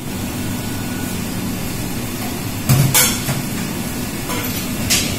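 Steady low hum of commercial kitchen equipment, with a few sharp metal clinks of utensils or pans about halfway through and again near the end.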